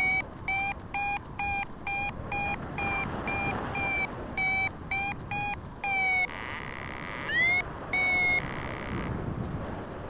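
Paraglider variometer beeping in short, even pulses, about three a second, the climb tone that signals the glider is rising in lift. The beeps stop about six seconds in, then come back as two longer beeps, with steady wind noise underneath.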